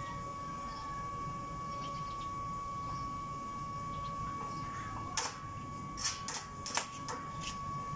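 Stick welding on a steel gate frame with a small inverter welder. About five seconds in come several short, sharp, irregular crackles as the electrode is struck against the steel to start the arc, over a steady high tone.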